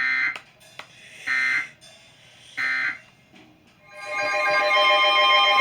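Three short bursts of Emergency Alert System digital data tones, the buzzy end-of-message code that closes the tornado warning broadcast, each about half a second long and a little over a second apart. About four seconds in, music with steady tones fades up.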